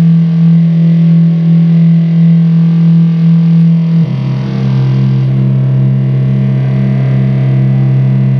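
Loud, distorted electronic drone from a live experimental music set: low tones held steady, changing pitch about four seconds in.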